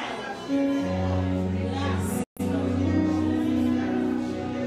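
Background music of sustained, held chords, with the sound cutting out for an instant a little over two seconds in.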